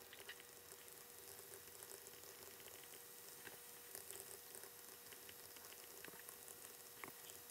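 Near silence: a low hiss with scattered faint taps and scratches of a stylus writing on a tablet screen, and a faint steady hum.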